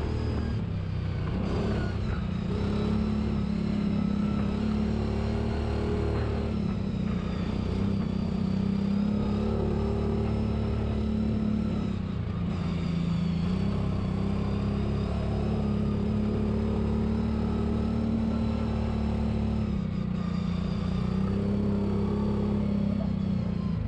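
Side-by-side UTV engine running steadily as the vehicle drives along a dirt forest trail, its note dropping and picking up again several times as the throttle eases and opens.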